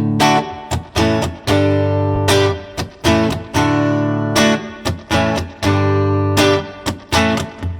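Guitar strumming a rhythmic run of chords, about two or three strikes a second with a few short breaks, played through a Mosky Audio Spring Reverb pedal that gives an amp-style spring reverb.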